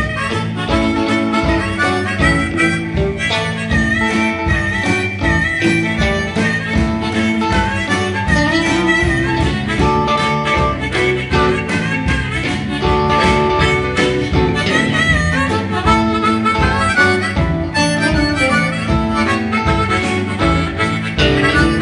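Blues harmonica solo over a live band of guitar, bass and drums, with the drums keeping a steady beat; an instrumental break between sung verses.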